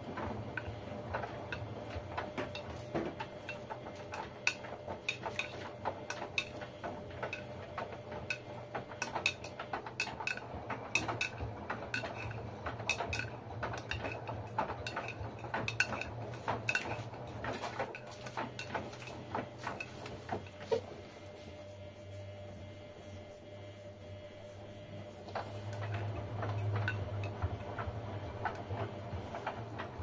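LG Direct Drive front-loading washing machine in its wash cycle: the drum tumbles a sudsy load with a low motor hum and frequent clicks and clinks as the laundry drops. The clicking stops for a few seconds about two-thirds of the way through, then the hum grows louder as the drum turns again.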